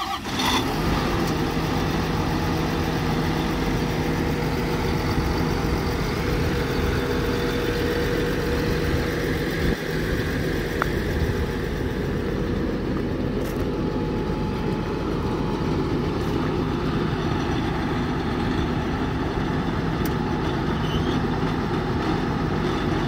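John Deere 7830 tractor's 6.8 L diesel engine running steadily, with an even, unchanging drone.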